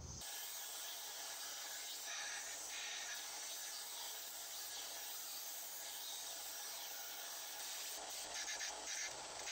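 Small benchtop belt sander running, with a piece of car coil spring steel held against the belt: a steady grinding hiss.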